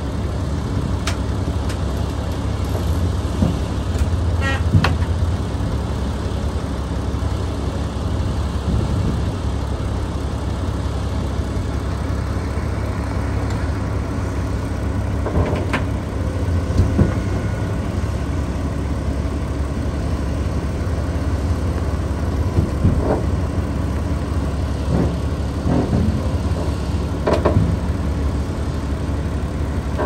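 Diesel engines of a Komatsu PC210 crawler excavator and a bulldozer running steadily, with a few short sharp knocks now and then.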